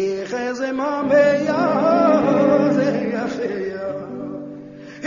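Band music with a male voice singing over guitar; the music drops in loudness about four seconds in.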